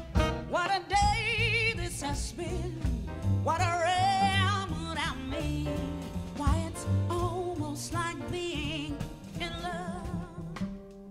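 Female jazz vocalist singing long held notes with a wide vibrato, backed by a jazz quartet.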